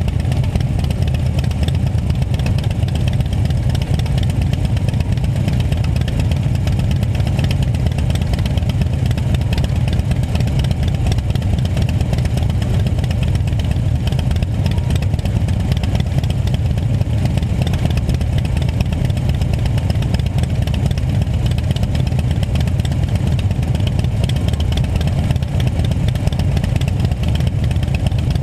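Several large touring motorcycles idling together while stopped, a steady low engine rumble.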